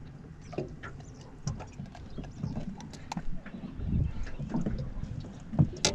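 Irregular small clicks and knocks of fishing pliers and gear being handled on a boat deck, with a sharper click near the end.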